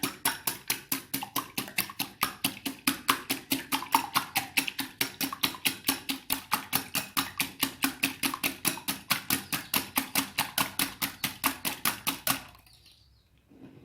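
Two eggs being beaten briskly in a bowl, the utensil clicking against the bowl at a fast, even rate of about six strokes a second. The beating stops near the end.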